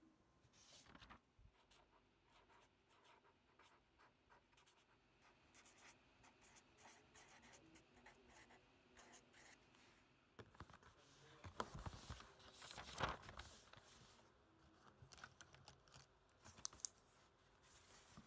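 Pen writing on paper: faint scratching strokes and small taps, with louder handling noises for a few seconds past the middle.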